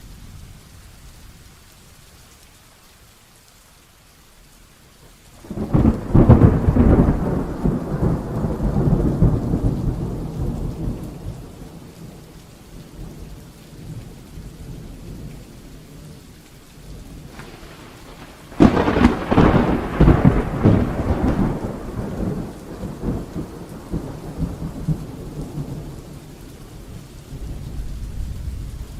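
Rainstorm: steady rain, broken twice by thunder. About five seconds in a sudden loud clap rolls off into rumbling for several seconds, and again a little past halfway a second clap starts sharply and rumbles away slowly.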